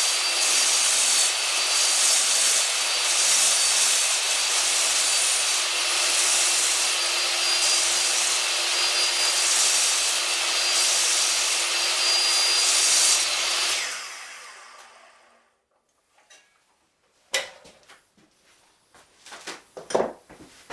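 Wood-cutting power saw running and cutting aluminium with a steady whine, switched off about fourteen seconds in and winding down. A few knocks and clatters follow near the end.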